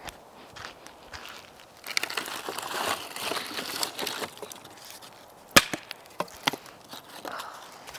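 Dry wood crackling and snapping: a dense run of crackles for about two seconds, then single sharp snaps, the loudest about five and a half seconds in.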